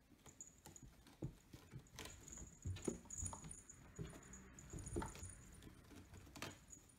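Two cats scuffling on a carpeted cat tree: irregular soft thumps and scratching as they paw at each other and one climbs a sisal post.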